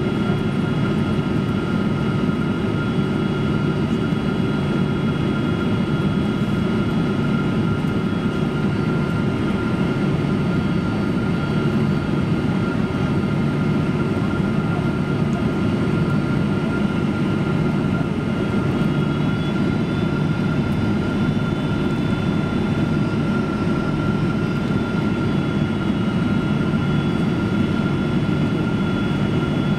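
Cabin noise of a Boeing 767-300 airliner on low approach: a steady rush of engine and airflow noise with a thin, steady high whine over it.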